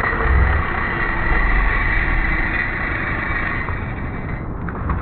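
Steady rushing of a shallow stream, with wind rumbling on the microphone underneath.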